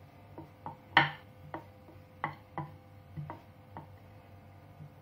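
Wooden rolling pin working a small disc of dough on a round wooden board, knocking against the board about eight times in irregular strokes, the loudest knock about a second in.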